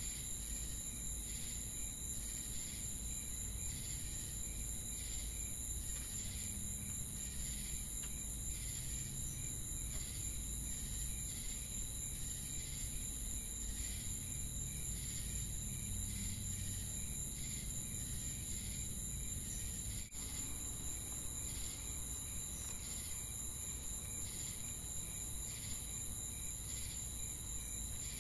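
Chorus of crickets and other insects: a dense, steady high-pitched drone with chirps repeating about once a second, and a brief break about two-thirds of the way through.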